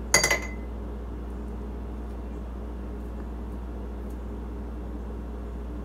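A brief clink of kitchenware right at the start, ringing for a moment, then a steady low hum of room noise.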